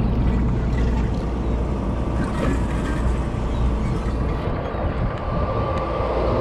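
Sportfishing boat's engines running steadily underway: a constant low drone with a faint steady whine above it.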